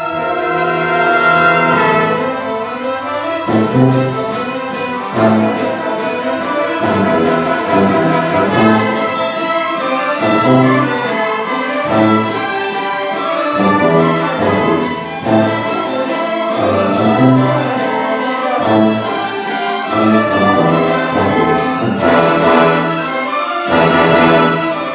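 A youth orchestra of strings and brass plays a fast, driving piece, with accented low notes about every second and a half.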